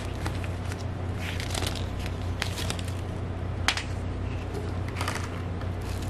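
Paper and plastic packaging being handled: an instruction sheet rustling, then a clear plastic blister tray and plastic bag crinkling, in irregular short crackles. There is one sharp click a little past halfway through.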